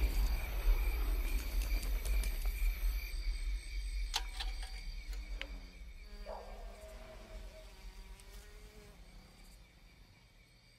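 Night ambience that fades out: a low rumble with a steady high insect tone, a few sharp clicks near the middle, then a thin insect buzz that holds for a few seconds before dying away.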